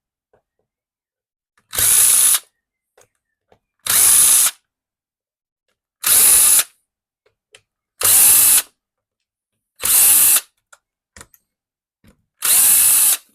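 Torque-control drill with a Torx bit spinning out screws one after another: six short runs of under a second each, about two seconds apart.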